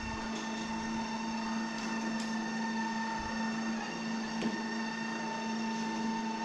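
SANO Liftkar PTR tracked stair climber's electric drive running steadily as it carries a wheelchair and its rider up a staircase: a steady motor whine made of several held tones, with a faint tick or two.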